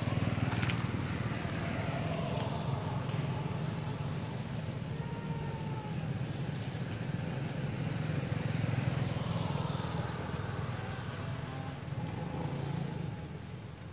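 A motor running steadily in the background, a low rumble that eases off near the end.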